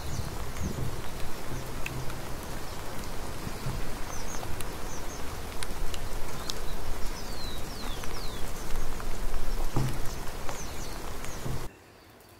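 Steady outdoor hiss, an even rain-like noise, with scattered faint clicks and a few short high chirps, cutting off abruptly near the end.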